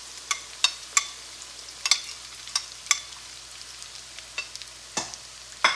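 Oil sizzling in a wok as ginger-garlic paste, onion and whole spices fry, with a steady faint hiss broken by irregular sharp crackles and pops.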